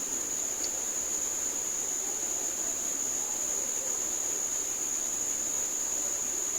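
A steady high-pitched whine held unbroken over a hiss, with a faint low murmur underneath.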